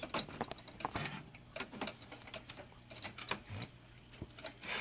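Irregular light clicks and taps of power-supply cable connectors being handled and pushed into place inside a desktop PC case.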